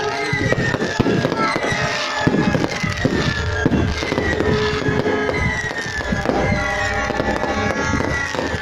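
A dense, continuous barrage of fireworks: many overlapping bangs and firecracker crackles, with a high tone falling in pitch about once a second.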